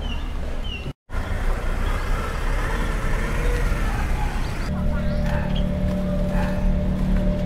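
Outdoor street ambience with a steady low rumble, cut off briefly about a second in. About two-thirds of the way through, a steady engine-like hum sets in.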